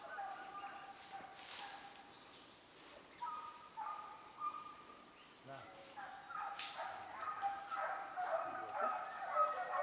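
Steady high-pitched insect drone in tropical forest, one unbroken tone. Fainter pitched calls come and go beneath it, busier from about the middle on.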